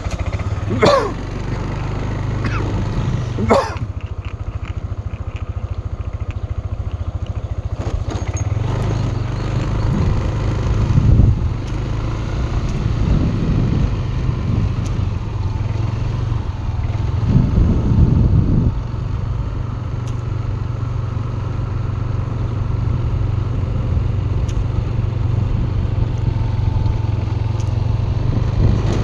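Small motorcycle engine running steadily, heard from on board while riding, with a low hum that swells briefly twice as the throttle opens.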